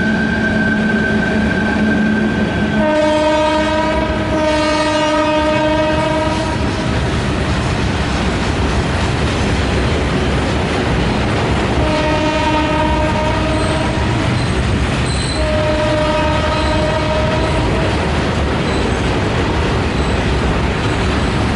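A freight train of open wagons hauled by a WAG-12 electric locomotive rolls past with a steady rumble of wheels on rail and some clickety-clack. Train horn blasts sound over it: one long blast a few seconds in, then two shorter blasts later on.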